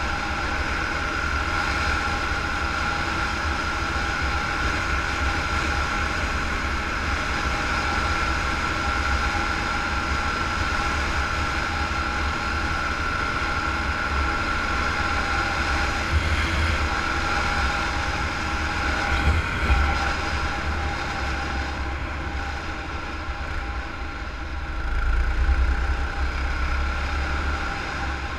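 Doodlebug mini bike's small engine running steadily at cruising speed, with wind buffeting the microphone, heaviest a few seconds before the end.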